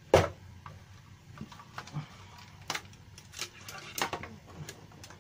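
Handling noise from a Tenda F3 wifi router's plastic case and swinging antennas as it is turned over and set on a workbench. A sharp knock at the start is the loudest sound, followed by scattered lighter plastic clicks and taps.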